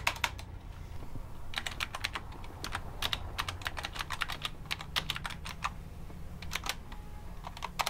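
Typing on a computer keyboard: runs of quick key clicks broken by short pauses, one after the first half second and another near the end.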